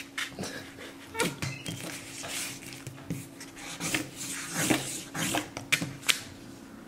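Plastic felt-tip markers handled on paper over a table: irregular light clicks, taps and brief rubbing as a capuchin monkey grabs at and mouths a marker. A faint steady low hum runs underneath.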